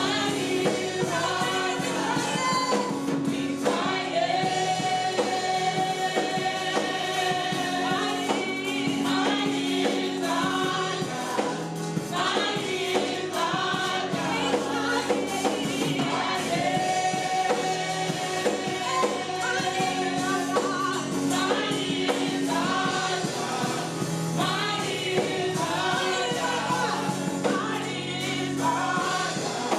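Gospel choir singing a worship song with instrumental accompaniment, long held notes over a steady bass line.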